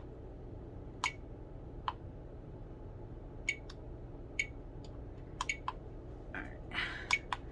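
Buttons on a small budget 4K camcorder clicking as they are pressed, about a dozen short, uneven clicks, with a brief rustle of handling near the end.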